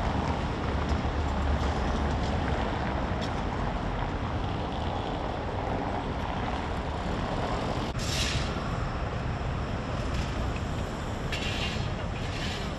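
Steady rumble of street vehicles passing, with short hissing bursts about eight seconds in and twice near the end.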